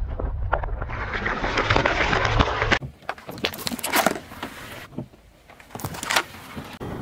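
Car tyre rolling slowly over objects on gritty asphalt and crushing them, with dense crackling and crunching and sharp plastic cracks. It comes as several short takes that change suddenly about three seconds in and again near five seconds.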